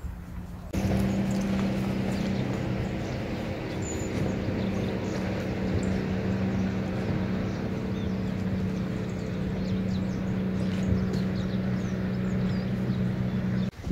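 An engine running steadily at an even speed, a constant hum that starts suddenly about a second in and cuts off just before the end.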